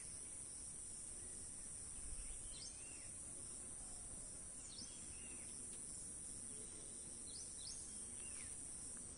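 Faint outdoor ambience: a steady high-pitched insect drone, with a few short bird chirps a few seconds apart.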